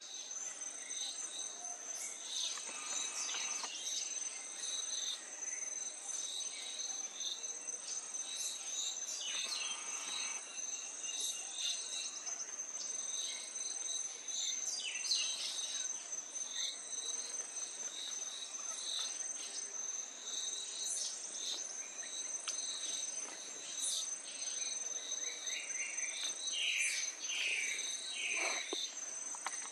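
A steady high-pitched insect trill, with scattered bird calls over it, including a quick run of four short falling notes near the end.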